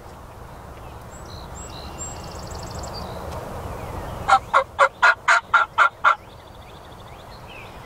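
A wild turkey gobbler gobbling once about halfway through: a rapid run of about eight notes lasting just under two seconds.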